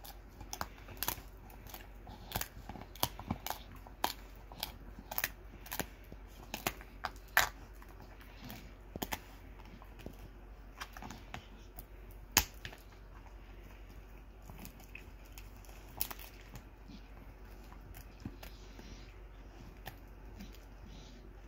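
Pit bull gnawing a dried pig ear, with sharp crunching cracks coming thick and fast for the first half, then sparser, with a couple of loud single cracks later on.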